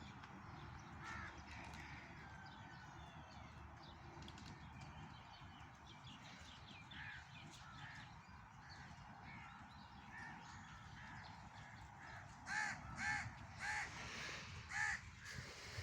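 Birds calling: faint scattered chirps, then a run of about five louder, harsh calls starting roughly three-quarters of the way through.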